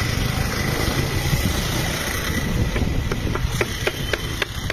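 Street background noise with a steady low rumble of traffic. From about three seconds in, a quick, even run of sharp taps, about four a second.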